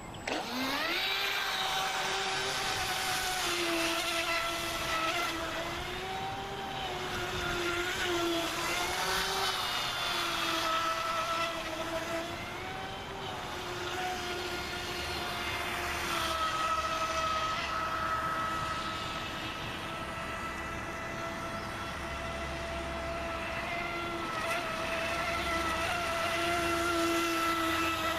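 Radio-controlled boat's brushless motor driving a Kyosho Dolphin outboard through its flex shaft, whining at speed. The whine rises quickly as the throttle opens about a second in, then holds high and fairly steady, wavering slightly in pitch as the boat runs.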